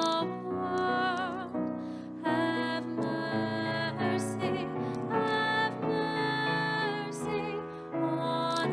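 Piano music with a held melody line above it that wavers in vibrato; the notes change every half second or so.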